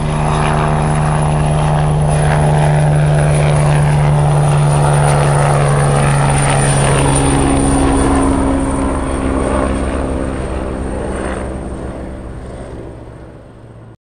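Multirotor camera drone's propellers buzzing steadily, with a thin high whine above the low hum. The sound fades away over the last few seconds and then cuts off.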